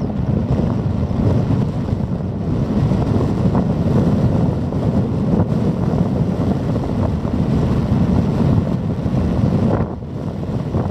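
Wind buffeting the microphone: a loud, gusting low rumble that eases briefly near the end.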